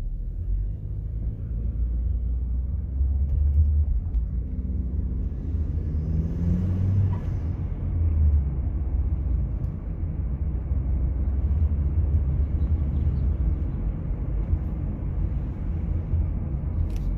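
2020 Chevrolet Equinox 1.5-litre turbocharged four-cylinder engine running under way, breathing through a K&N filter in a modified stock airbox, with a steady low rumble of engine and road. About five seconds in the revs rise for a couple of seconds, with a faint hiss near the top before they drop.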